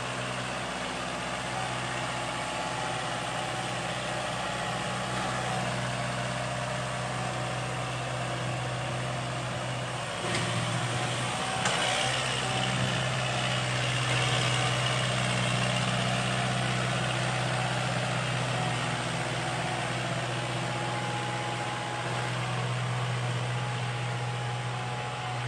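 Kubota tractor's diesel engine running steadily at a constant speed while pulling a tine cultivator through soil. It gets louder a little before halfway through and drops back near the end.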